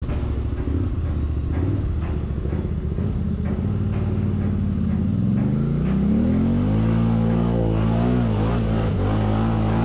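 ATV engine running low, then revving up about five seconds in and holding at higher revs that waver a little.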